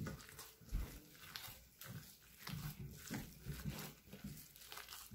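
Soft, irregular squelches and slaps of a sticky ground pork and shrimp filling being squeezed and turned by a gloved hand in a ceramic bowl, a couple of times a second.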